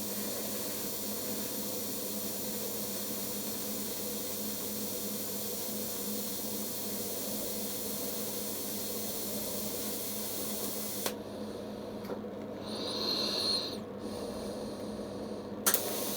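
Steady hiss of welding, copper being joined to stainless steel with copper-phosphorus filler. The hiss cuts off about eleven seconds in, a brief faint high tone follows, and the hiss starts again near the end.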